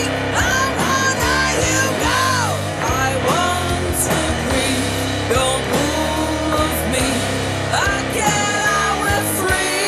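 Rock band playing a song in a stoner and grunge style: a woman sings over electric guitar, bass and drums.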